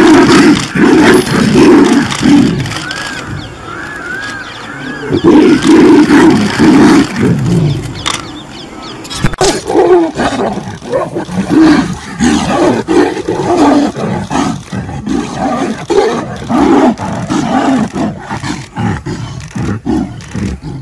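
Tigers fighting, with a rapid run of loud, repeated roars and snarls that carries on through a second scuffle.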